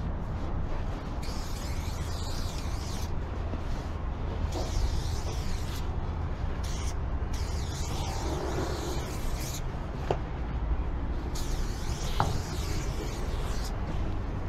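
Aerosol spray-paint can hissing in four long bursts of a couple of seconds each, with short pauses between them, over a steady low rumble.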